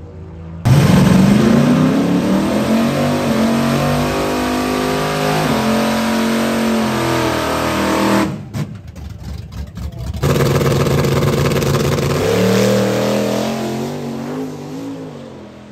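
Drag-racing trucks at full throttle. The first, a diesel pickup, comes in suddenly and rises in pitch, with a gear change about six seconds in. After a couple of seconds of choppy crackle, a Chevy S-10 drag truck launches and pulls away, rising in pitch and fading near the end.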